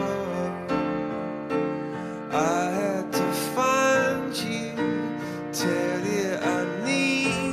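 A song: a voice singing with gliding, held notes over steady instrumental accompaniment.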